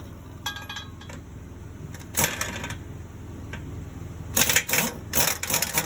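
Short bursts of metallic clanking and rattling, about two seconds in and again in a cluster near the end, over a steady low engine hum.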